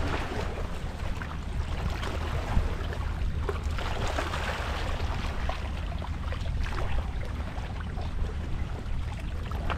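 Wind rumbling on the microphone at the water's edge, steady throughout, with scattered small clicks and crackles over it.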